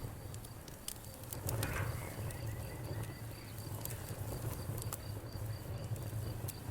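Wood fire crackling, with sharp pops scattered through and a steady low rumble of the burning fire. A faint, high, evenly pulsing chirp runs underneath.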